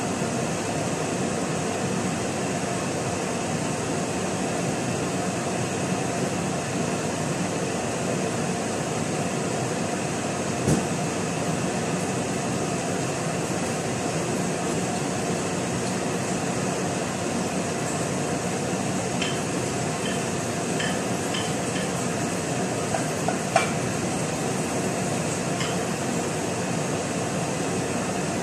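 Steady hiss of a lit gas stove burner heating a pot of oil, with a sharp click about a third of the way in and a few light clicks and clinks of kitchenware in the latter half.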